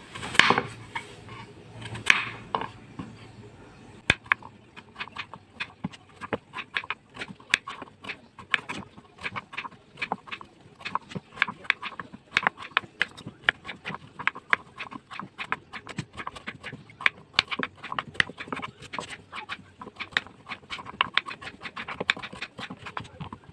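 Kitchen knife chopping pumpkin into cubes on a wooden cutting board: a steady run of quick taps of the blade through the flesh onto the board, several a second, starting about four seconds in after a couple of louder knocks near the start.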